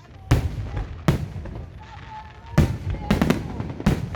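Fireworks display: aerial shells bursting with sharp bangs, about five in four seconds, with a quick cluster of cracks a little past three seconds in.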